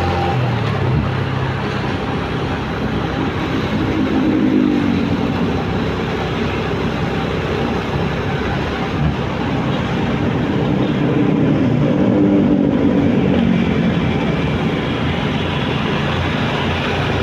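Motorcycle ridden in city traffic: its engine runs under a steady rush of wind and road noise, its pitch rising and falling twice as the speed changes.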